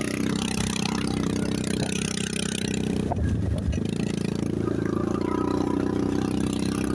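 ATV engine running steadily while riding, its note dropping out briefly about three seconds in before resuming.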